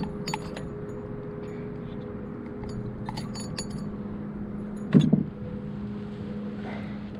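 Small light clicks and rattles of tackle as a bowfin is grabbed at the side of a kayak, then one loud hollow thump about five seconds in as the fish is hauled against the hull. A steady low hum runs underneath.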